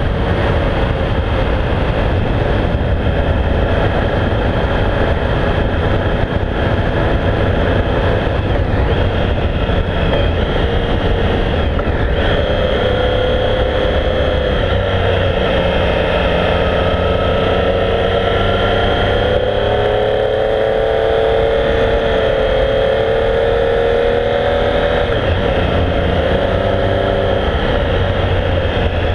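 Triumph Speed Triple's three-cylinder engine running under way, its note rising and falling with the throttle, with wind rushing over the microphone.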